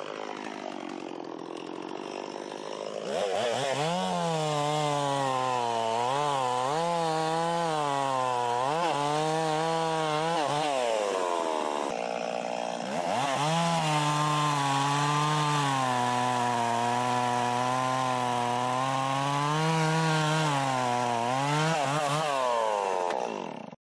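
Two-stroke chainsaw fitted with a chain safety guard, revving hard and cutting into a tree. The engine pitch repeatedly dips and recovers as the chain bites into the wood. It runs lower for the first few seconds, eases off briefly about halfway, then cuts again until the sound stops suddenly near the end.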